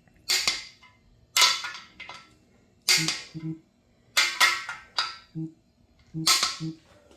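Click-type torque wrench breaking over as the engine's main-cap studs reach 60 ft-lb: a sharp metallic click every second or so, some of them doubled.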